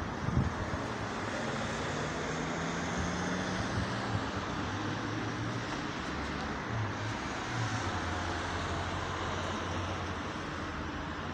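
Distant road traffic: a steady hiss of tyres on wet roads with a low hum of engines.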